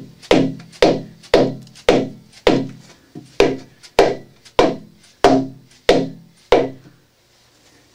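Hammer blows on the PVC pipe, driving it down into the rubber gasket in the cast iron hub: an even run of hard knocks a little under two a second, each with a short ringing thud. They stop near the end.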